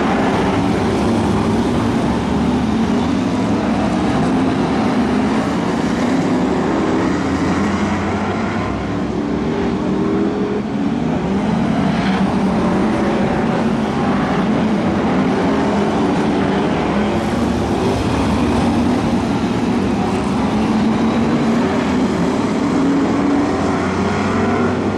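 Several BriSCA F1 stock cars' V8 engines running hard around the oval, the pitch rising and falling as the cars accelerate down the straights and lift off for the turns.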